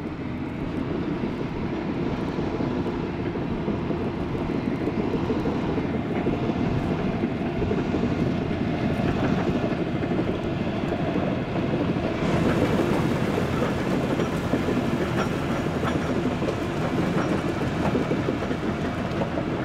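Heavy diesel machinery running hard: a Volvo crawler excavator's engine working and its steel tracks clanking as it travels across the mud, with the stuck truck's engine under throttle. The noise steps up a little about twelve seconds in.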